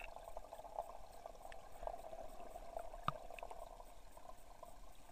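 Water heard from underwater: a steady, muffled crackling hiss, with a few faint clicks, the sharpest about three seconds in.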